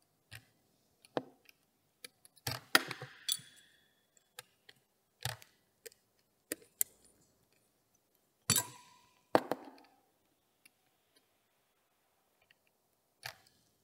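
Small hand tools working on an RC touring car chassis: a hex driver turning the anti-roll bar ball stud and digital calipers being handled, giving a series of sharp clicks and light taps. The louder clusters come about two and a half and eight and a half seconds in, some with a brief metallic ring.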